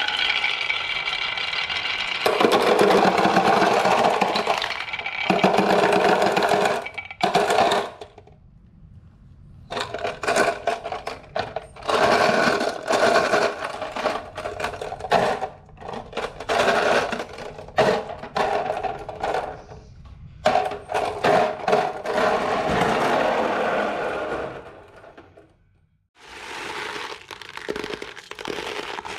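Marbles rolling down wooden HABA marble-run tracks, rumbling along the slopes and clacking against the wooden pieces, with short pauses between runs.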